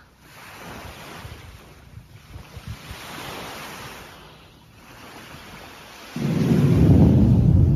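Wind noise on a phone microphone, then about six seconds in a sudden loud, low rumble sets in and holds: the distant roar of a surface-to-air missile's rocket motor reaching the microphone.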